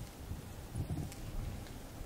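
Microfiber towel rubbing back and forth over car paint, buffing off dried sealant: quiet, uneven wiping strokes.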